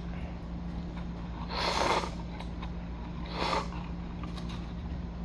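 Two loud slurps of instant cup-noodle ramyeon eaten with chopsticks, one just under two seconds in and another about a second and a half later, over a steady low hum.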